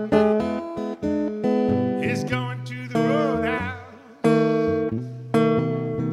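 Steel-string acoustic guitar playing a blues accompaniment: chords strummed in a rhythm, several cut short, with a wavering passage around the middle before the strumming comes back in strongly.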